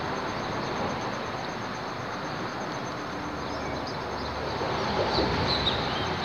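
Steady rumble of traffic on the highway bridge overhead, with a thin steady high whine and a few faint chirps about five seconds in.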